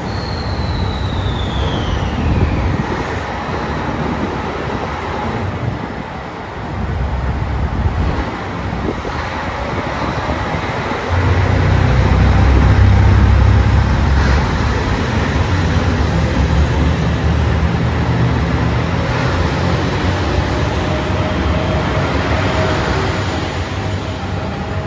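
JR Shikoku 2700 series diesel multiple unit pulling away from a station, its diesel engines running under load and growing louder about eleven seconds in. A faint tone rises slowly through the second half as the train gathers speed.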